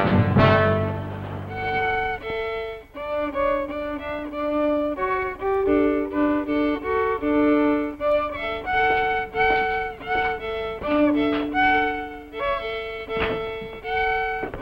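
Solo violin played slowly, a simple tune of separate held notes, taking over as the last notes of the orchestral score die away at the start. A single knock sounds near the end.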